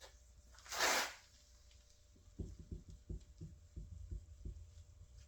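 An alcohol wipe being rubbed along a car's window frame to clean it before a stick-on visor goes on: a short rubbing swish about a second in, then a run of soft low thumps, about four a second, as the hand works along the frame.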